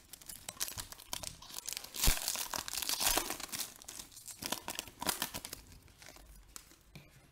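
Foil wrapper of a Panini Donruss Optic basketball card pack being torn open and crinkled by hand: irregular crackling and tearing, loudest about two seconds in, dying away over the last two seconds.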